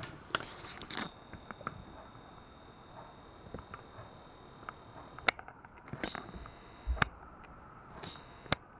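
Faint handling clicks and small knocks from a hand-held camera being moved in close, with three sharper clicks in the second half. Behind them are quiet room tone and a faint steady high whine that begins about a second in.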